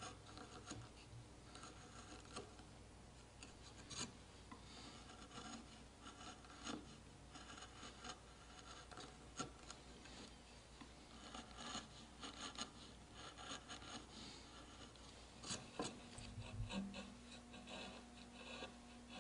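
Faint, irregular scraping of a hand carving gouge paring short cuts in wood, with a few light ticks as the edge enters and leaves the grain.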